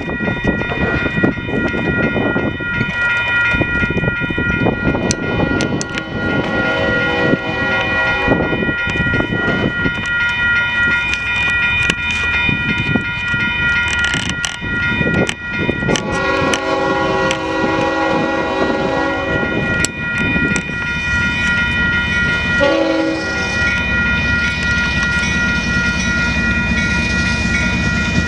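Railroad crossing electronic bells (WCH E-Bells) ringing steadily while an approaching Union Pacific locomotive sounds its horn for the crossing: a long blast, a second long blast and a short one, under a steady low rumble.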